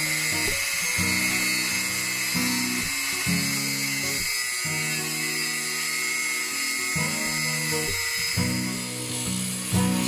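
A power tool whining steadily as it cuts through a metal arch tube. Background music with sustained low chords plays under it.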